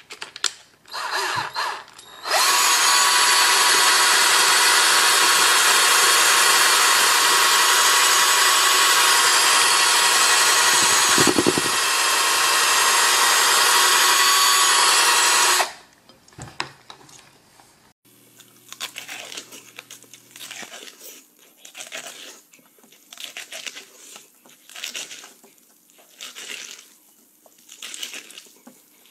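Electric drill spinning a corn cob on its bit: a few short bursts, then a steady run of about 13 seconds with a steady whine, briefly dipping near the middle, before it stops. Quieter, irregular sounds follow.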